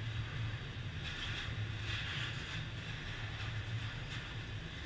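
Loaded container and flat wagons of a freight train rolling past at speed: a steady rumble of steel wheels on rail, with the higher hiss of the wheels swelling for a moment about two seconds in.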